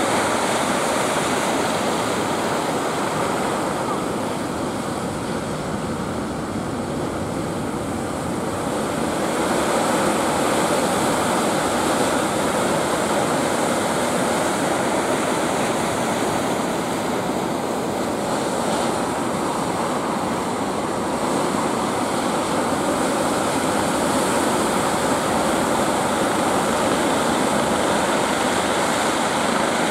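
Ocean surf breaking and washing up the beach in a steady rushing noise, dipping a little and then swelling again about nine seconds in.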